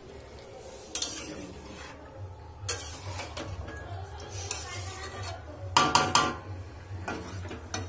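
Aluminium pot lid and metal cookware clanking on a kadai of braising meat: a couple of sharp knocks early, then a cluster of loud, ringing metal clanks about six seconds in, over a low steady hum.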